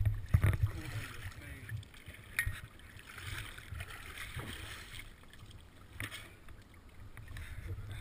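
Lake water sloshing and splashing against the waterproof housing of an action camera at the water's surface, with low bumps at the start and a few sharp knocks.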